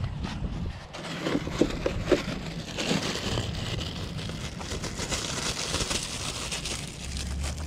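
Thin plastic carrier bag rustling and crinkling as hands open and work it, with a few sharp crackles about a second and a half in.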